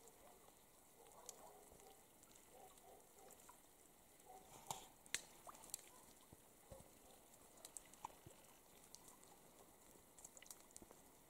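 Faint scattered drips and soft ticks of water falling from snow-laden branches, a few louder drips about five seconds in.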